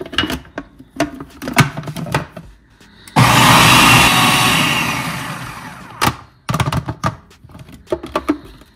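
Electric food processor blending a thick pesto paste: its motor starts abruptly about three seconds in, runs for about three seconds, fades a little and stops. Before and after it, the clear plastic lid and bowl click and clatter as they are fitted and handled.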